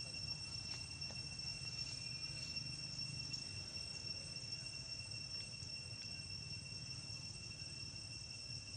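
Insects trilling steadily in one unbroken high-pitched tone, with a fainter higher tone above it, over a low background rumble.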